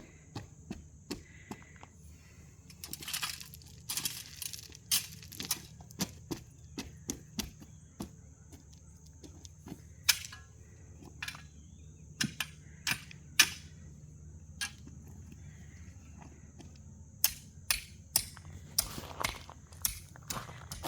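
Irregular crunching clicks and short scrapes of stone and gravel, with footsteps, as rock is spread around the ground. A low steady hum runs underneath.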